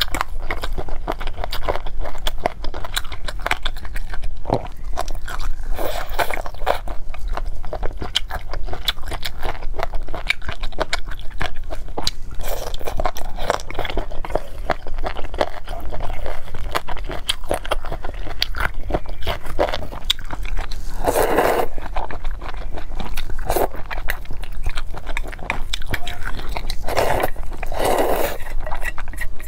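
Close-miked eating of spicy noodles and chicken feet: steady chewing and biting with many small wet clicks, and two louder slurps of noodles, one about two-thirds of the way through and one near the end.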